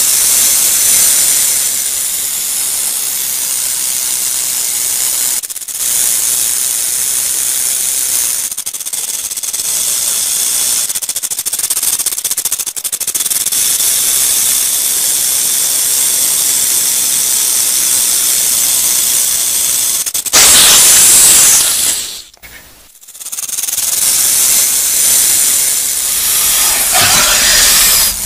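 Rattlesnake shaking its tail rattle: a continuous dry, high buzz. It breaks off briefly twice early on, swells louder about twenty seconds in, then cuts out for a moment before buzzing on.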